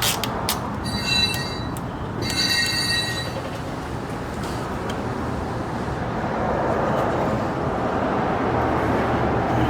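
Steady rumble of a vehicle in motion, with two short high-pitched squeals about one and two and a half seconds in.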